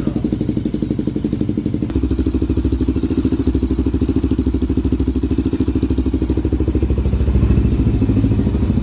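Freshly rebuilt Honda TRX400EX's single-cylinder four-stroke engine running at idle on its first start-up after a top-end rebuild, with an even, rapid pulse. It grows louder about two seconds in.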